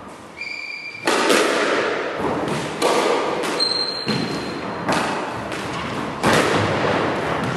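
A squash ball being struck by rackets and hitting the court walls during a rally: about four sharp hits a second or two apart, each ringing on in the echoing court. Short high squeaks of shoes on the wooden floor come in between.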